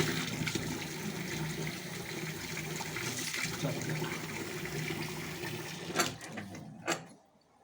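Water running hard from a sink mixer tap, with a low steady hum underneath. It cuts off near the end after a couple of sharp clicks as the tap is shut.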